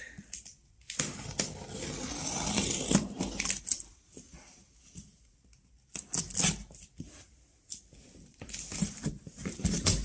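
Packing tape being torn and cut off a cardboard box, with the cardboard rustling and scraping as it is handled. It comes in bursts: a long stretch about a second in, and shorter ones later and near the end as the lid is lifted.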